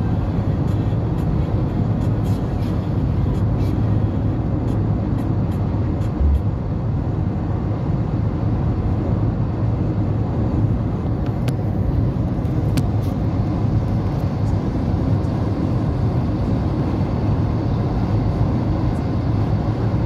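Steady road and engine rumble heard from inside a vehicle travelling at highway speed.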